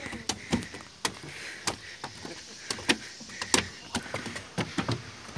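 Footsteps knocking on wooden stair steps during a steady climb, irregular thuds about one or two a second, with hard breathing from being out of breath.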